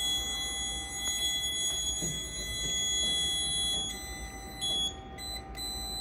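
Fire alarm control panel's trouble buzzer sounding a steady high-pitched tone, which falters with short breaks in the last two seconds. The panel is in a trouble condition with its data loops disconnected.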